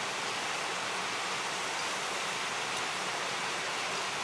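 Steady rushing of flowing water, an even hiss-like noise with no change in level.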